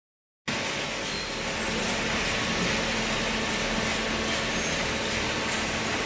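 Hydraulic cardboard baler and its conveyor running: a steady mechanical din with a low hum, starting abruptly about half a second in.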